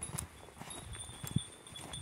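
Footsteps and hoofbeats on a snow-covered road as goat kids and people walk along together: an irregular patter of short, soft steps.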